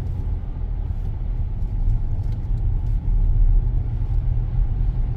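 Steady low rumble of a car driving on a snowy road, heard from inside the cabin: engine and tyre noise at a constant speed.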